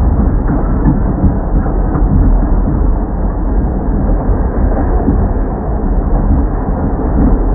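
New York City subway train running: a loud, dense low rumble that swells and dips continually.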